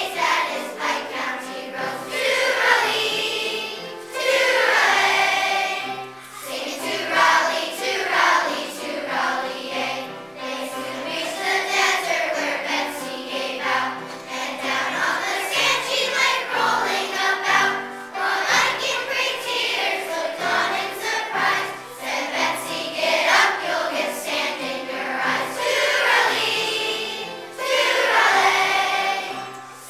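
Large children's choir singing a song, accompanied by an upright piano.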